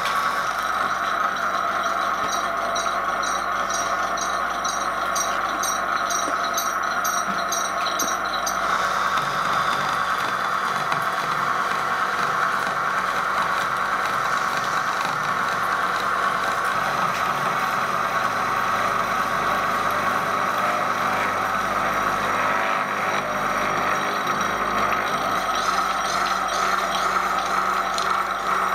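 Elliott Victoria horizontal milling machine running under power feed, its arbor-mounted disc cutter cutting steadily through an aluminium block. A fast, faint high ticking, about two a second, runs through the first eight seconds or so.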